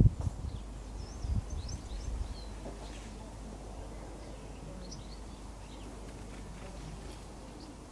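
Garden ambience: a steady low rumble with small birds chirping now and then, short high calls scattered throughout.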